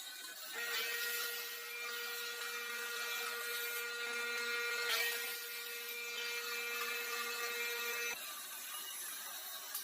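A small, high-speed power tool motor running with a steady high-pitched whine. It starts about half a second in, falters briefly about halfway, and cuts off suddenly near the end.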